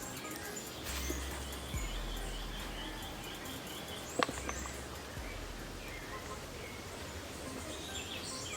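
Outdoor ambience with birds chirping in repeated short calls, over a low rumble that comes and goes. A single sharp snap about four seconds in.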